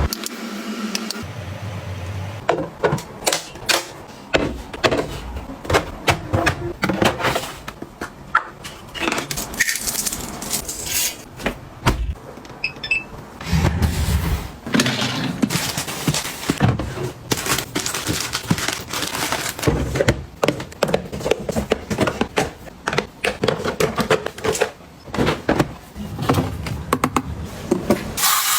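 Small hard containers being handled and set down: a run of irregular clicks, taps and knocks, with light rattling between them.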